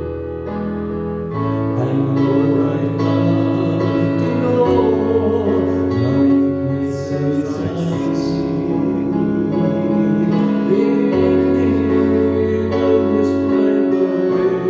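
Church worship music: sustained keyboard chords over a bass line, changing chord every few seconds.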